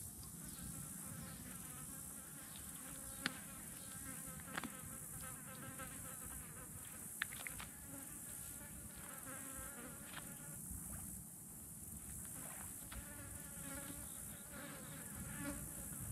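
A fly buzzing close by, on and off, its pitch wavering as it moves around, with a few sharp clicks.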